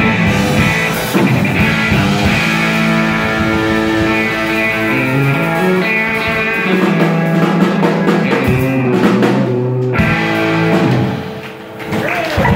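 Live country band playing an instrumental passage: Telecaster-style electric guitar, electric bass, drum kit and steel guitar. The music briefly drops away near the end before picking up again.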